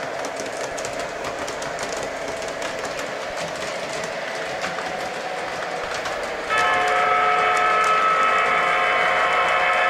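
O gauge model diesel locomotive running on three-rail track, with a steady motor hum and light clicking of wheels over the track. About two-thirds of the way through, its onboard sound system sounds the horn: a loud, steady multi-note chord held to the end.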